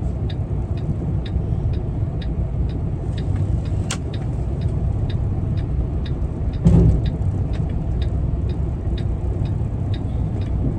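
Semi-truck diesel engine running, heard inside the cab, with a steady ticking about twice a second over it. A sharp click about four seconds in and a single heavier thump about two-thirds of the way through.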